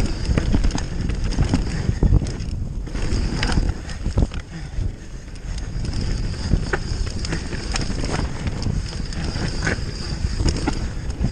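Mountain bike ridden fast down a dry dirt trail: the tyres rumble over the ground, wind buffets the camera's microphone, and the bike rattles over bumps with many short sharp knocks.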